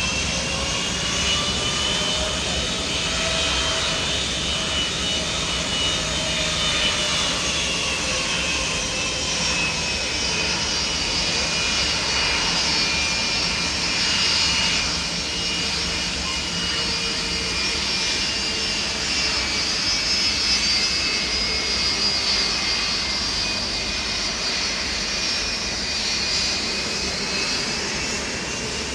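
Jet airliner engines running steadily, a high turbofan whine that slowly wavers up and down in pitch over constant engine noise.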